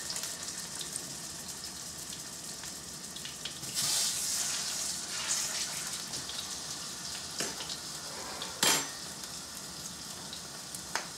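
Pork chops frying in a hot skillet, a steady sizzle that swells loudly for about a second around four seconds in as the second chop goes into the pan. A short sharp clink about nine seconds in.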